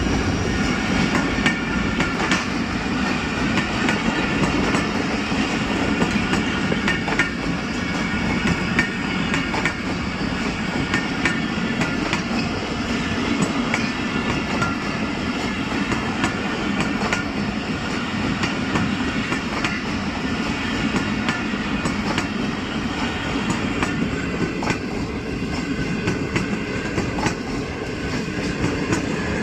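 Pakistan Railways express passenger train rolling past at speed: a steady rumble of coach wheels on the rails, with the clickety-clack of wheels crossing rail joints.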